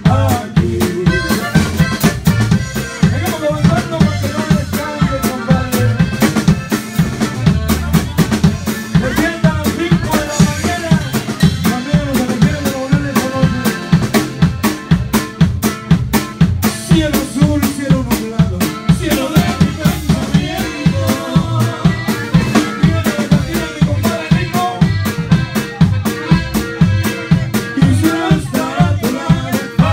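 Live band dance music: a drum kit keeping a steady, quick beat with electric bass guitar and a melody line over it.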